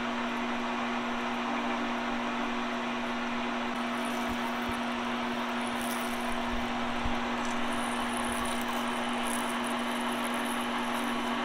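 Metal lathe running with a center drill fed slowly into the end of a spinning stainless steel bar: a steady motor hum with an even noise beneath it.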